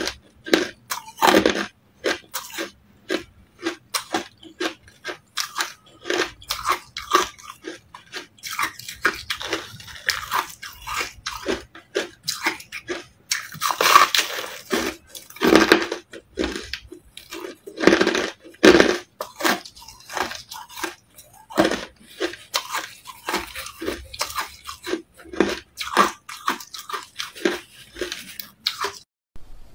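Crushed carbonated ice being bitten and chewed: a steady run of crisp crunches, mouthful after mouthful, with the loudest bites about halfway through.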